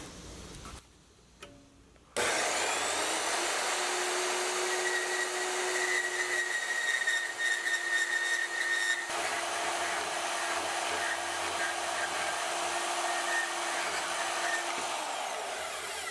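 Milwaukee portable band saw cutting through a flat steel bar: the motor starts about two seconds in and the blade runs steadily through the cut, then winds down near the end.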